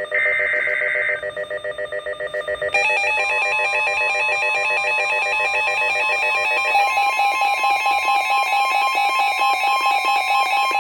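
NOAA Weather Radio emergency alert: a roughly one-second buzzy data burst (the SAME digital header), then a rapidly pulsing electronic alert alarm, joined about three seconds in by a steady warning tone. Together they signal that a warning, here a severe thunderstorm warning, is about to be read.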